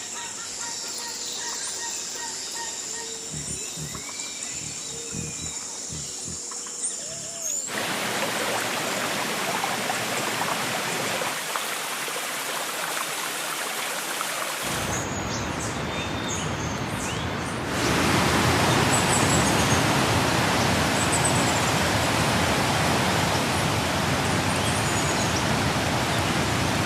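Jungle ambience: a steady high insect drone with scattered bird chirps, which about eight seconds in cuts abruptly to a loud, even rushing noise that steps up louder past the middle, with bird chirps faintly over it.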